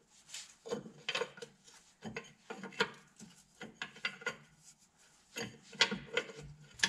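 A hand wrench backing out a loosened 15/16 mounting bolt on a truck's drive-axle air brake chamber: a series of short metallic rasping clicks, one every half second or so, with a short pause about two-thirds of the way through.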